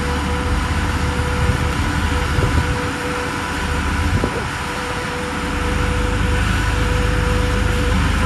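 Car crusher's engine and hydraulic pump running steadily with a constant whine as the crushing lid lifts; the drone grows louder a little past halfway.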